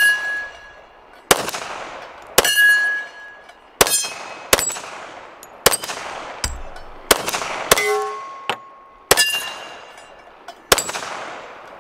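About nine .45 ACP pistol shots from a Glock 41, fired at an uneven pace about a second apart, with steel plate targets ringing after several of the hits.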